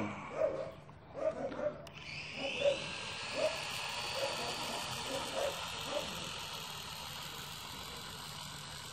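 Small toy quadcopter's four electric motors and propellers spinning up about two seconds in, pitch rising briefly and then holding as a steady high whine. Short repeated yelps sound in the background over the first six seconds.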